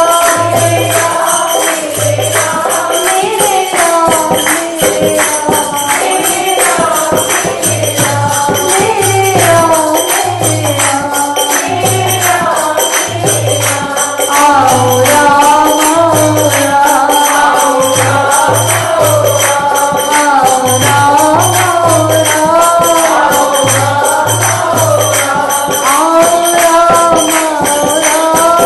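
A woman singing a Hindi devotional bhajan to Ram into a microphone, the melody gliding and ornamented. Steady jingling percussion like a tambourine and regular low beats go with it.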